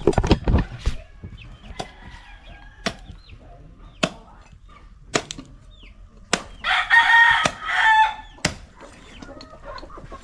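A rooster crows loudly about seven seconds in, with hens clucking softly around it. Scattered sharp strikes come from a bolo knife chopping into a marlin on the ground, several in the first second and then about one a second.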